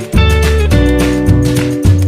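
Background music with guitar, a strong bass and a steady beat.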